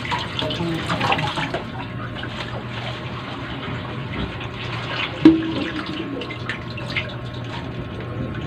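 Pork sinigang broth bubbling in a wok on a gas burner, with leaves rustling and splashing as handfuls of water spinach (kangkong) are dropped in. A sharp clink with a brief ring sounds about five seconds in.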